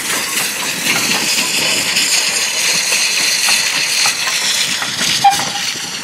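BR Standard Class 2 2-6-0 steam locomotive 78018 moving slowly with its cylinder drain cocks open, giving a steady loud hiss of steam. A brief sharp note sounds about five seconds in.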